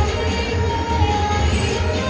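Loud music for a cheerleading routine playing over loudspeakers, with a heavy, steady bass and a melody line on top.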